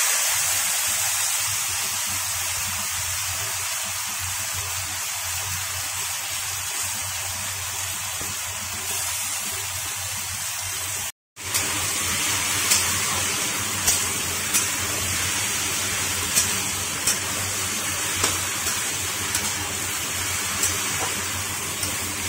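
Boiled taro greens and chickpeas sizzling in hot oil in a kadai, a steady hiss. After a brief cut about 11 seconds in, a steel spatula stirs the greens, knocking against the pan about once a second over the sizzle.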